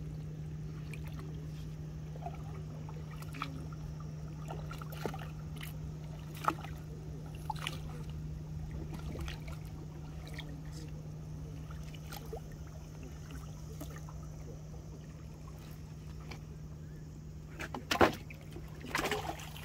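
Small boat's motor running steadily with a constant low hum, with scattered light knocks and clicks and a louder knock and clatter near the end.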